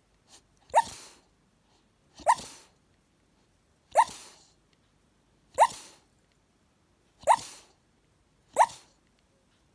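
Staffordshire Bull Terrier puppy barking in his sleep while dreaming: six short barks about every second and a half, each rising quickly in pitch.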